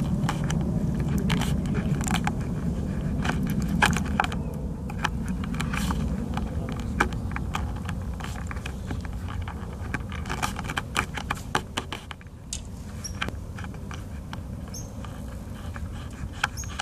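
Irregular clicks and light rattling from fly-fishing gear being worked while a carp is played, over a low rumble of handling noise; the clicks come thickest about ten to twelve seconds in.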